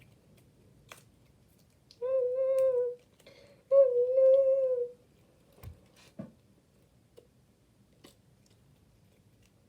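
A person humming two long, nearly steady notes, the second starting just after the first ends, with a few faint clicks and taps around them.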